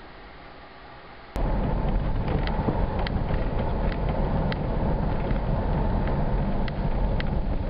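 Faint steady hum, then about a second and a half in a sudden switch to loud road and wind rumble from a moving car, with a few light ticks.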